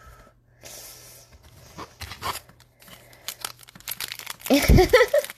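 Foil trading-card pack wrapper and cards being handled, with crinkling and tearing. About four and a half seconds in comes a short, loud pitched warble that is louder than the rest.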